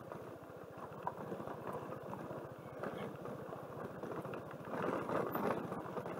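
Suzuki Burgman 200 scooter's single-cylinder engine running steadily at low road speed, with its tyres on a loose gravel road. It gets louder from about five seconds in.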